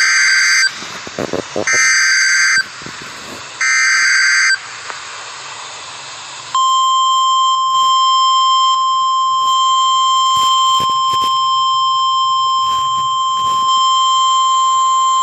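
NOAA Weather Radio Emergency Alert System activation for a severe thunderstorm warning. Three one-second bursts of the SAME digital header, a harsh warbling screech, play about two seconds apart with radio hiss between them. After a short gap the steady 1050 Hz warning alarm tone comes on about six and a half seconds in and holds through the end.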